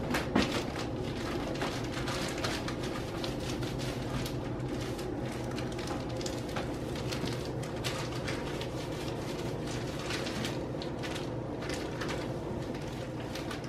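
Foil-lined chip bag crinkling and rustling in many small crackles as gloved hands fold and press it flat, over a steady low hum.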